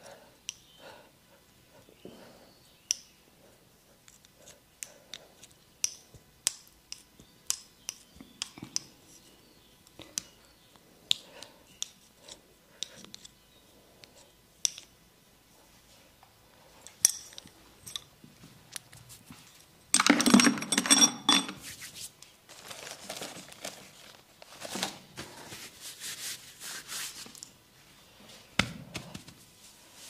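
Hands-on massage sounds: a string of sharp, irregular clicks and snaps, then a louder rough burst about two-thirds of the way in, followed by several seconds of rubbing.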